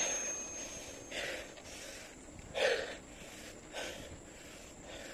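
The ring of a bicycle bell dies away in the first second. Then come three short, breathy huffs from the cyclist.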